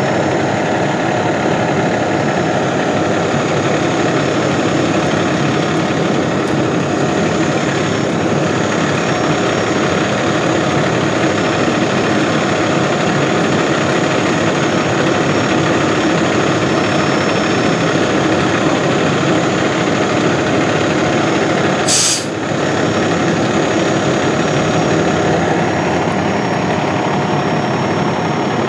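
Steady, loud running of an idling heavy emergency vehicle's engine, unchanging throughout. A single short, sharp noise cuts in about 22 seconds in.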